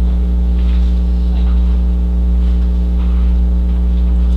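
Loud, steady electrical mains hum in the recording: a constant low buzzing drone with its overtones, unchanging throughout.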